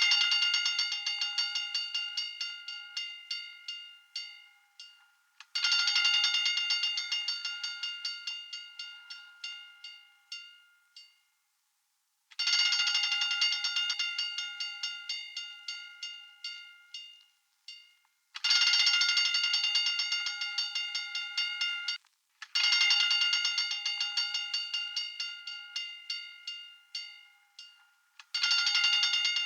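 Hand-cranked fire alarm bell ringing with rapid strikes, in repeated spells of about four to six seconds. Each spell starts loud and dies away, with short breaks between.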